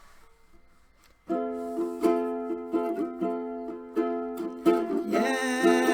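Ukulele strumming chords, starting about a second in after a quiet moment, as the introduction to a song.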